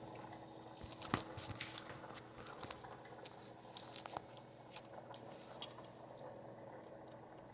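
Faint lip smacks and small wet mouth clicks of someone tasting a dipping sauce, scattered through the first few seconds and thinning out near the end.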